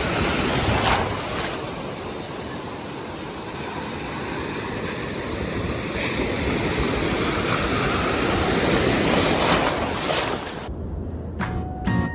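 Ocean waves washing onto the beach, with wind buffeting the microphone; the surf swells and eases. Near the end it cuts off abruptly and acoustic guitar music begins.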